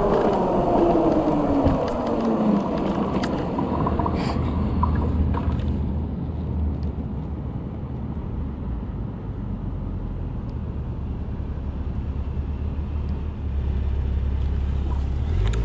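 Electric e-bike motor whine falling in pitch as the bike slows to a stop, fading out after about two and a half seconds. A steady low rumble follows while the bike stands still, with a few clicks about four seconds in. Right at the end the whine starts rising again as the bike pulls away.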